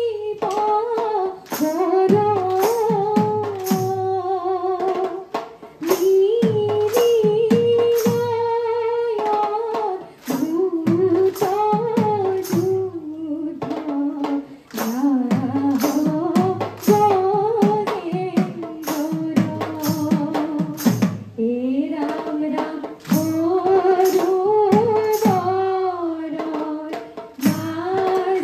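A women's group singing a dihanam, an Assamese devotional chant, in phrases with short breaks, over steady rhythmic hand-clapping.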